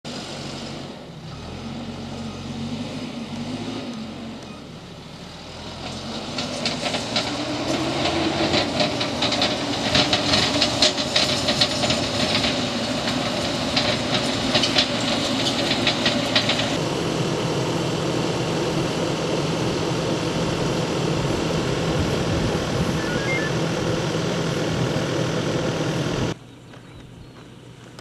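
Backhoe loader's diesel engine working under load as the front bucket pushes soil along a dirt road. The engine rises about six seconds in, with scraping and clattering of earth and stones for about ten seconds. The engine then runs steadily until the sound cuts off abruptly near the end.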